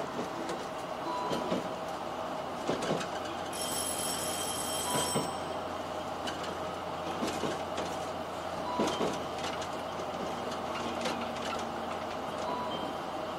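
Limited express train heard from inside the passenger car as it pulls slowly into a station: a steady running rumble with irregular clacks of the wheels over rail joints and points. A brief high-pitched squeal comes about three and a half seconds in.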